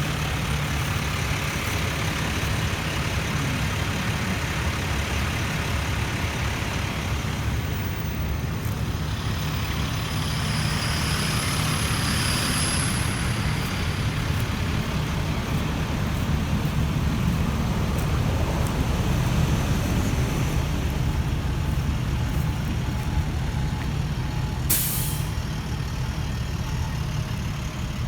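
Heavy truck engine running steadily, with a short hiss of released air near the end.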